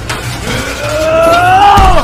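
One voice holding a long, strained yell that rises slowly in pitch and drops off near the end, over background music.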